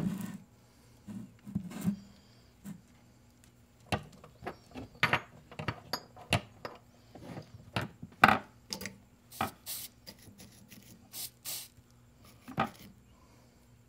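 Irregular small clicks, taps and rubbing from hands handling thin wires and small metal parts on a workbench during soldering preparation.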